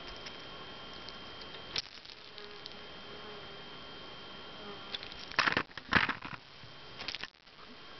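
Camera handling noise: a click about two seconds in, then three loud bursts of rustling and bumping in the second half as the camera is moved. A faint, steady high whine runs underneath.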